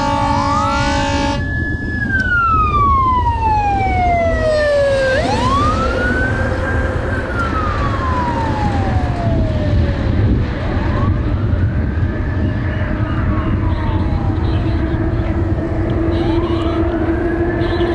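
Fire engine siren on a slow wail, rising quickly and falling off slowly in cycles of about five seconds, over a steady low rumble. A steady chord of several tones cuts off about a second in.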